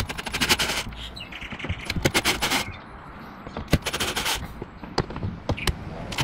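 Cordless drill-driver backing out the door speaker's mounting screws in three short bursts of rapid clicking, followed by a few separate sharp clicks as the speaker is worked loose from the door.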